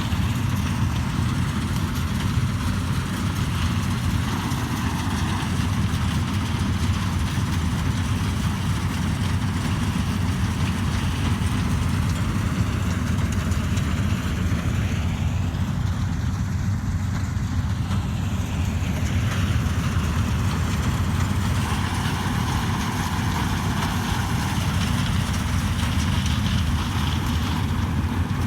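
Vishal combine harvester's diesel engine running steadily at a constant level, with a low hum and a hiss of machinery over it.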